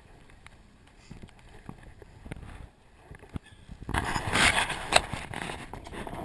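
Faint scattered knocks, then about four seconds in a sudden loud burst of rustling and knocking on the microphone as the camera is moved around.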